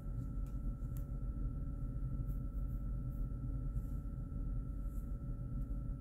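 Steady low background hum with a faint constant whine over it, and a few faint ticks.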